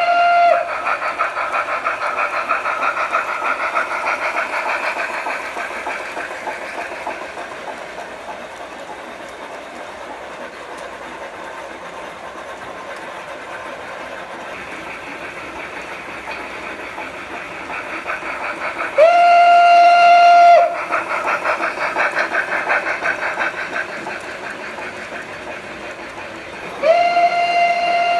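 Sound decoder of a large-scale model steam locomotive playing fast steam chuffing through its onboard speaker. The chuffing fades as the train runs away and grows louder again. A whistle with several tones ends just after the start, blows for about two seconds near the middle, and sounds again near the end.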